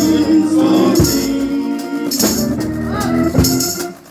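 Live gospel singing through handheld microphones: a lead voice with other singers, over rattling hand percussion and sharp hits about once a second. The sound dips briefly near the end.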